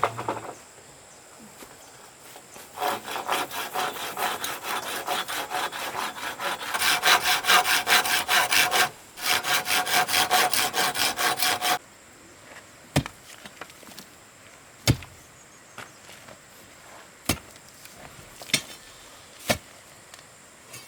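Hand saw cutting through wood in quick, even strokes, about four a second. The sawing pauses briefly and stops about twelve seconds in, followed by a few scattered sharp knocks.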